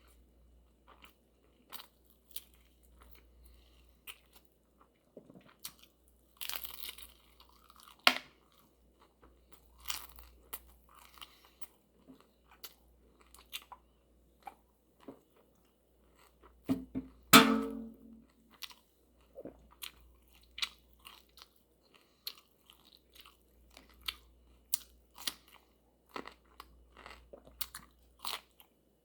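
Close-up eating sounds: crunching and chewing of crisp fried flautas, with many wet mouth clicks and smacks. About two-thirds of the way through comes one loud, low, pitched burp lasting about a second.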